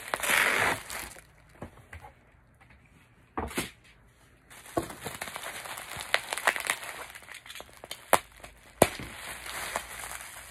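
A cardboard shipping box is pulled open, then bubble wrap crinkles and rustles as it is handled and cut with a utility knife, with two sharp clicks near the end.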